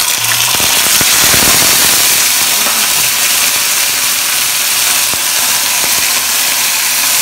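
Hot oil in a frying pan sizzling and crackling loudly and steadily as a batch of wet cicada nymphs is dropped in to deep-fry.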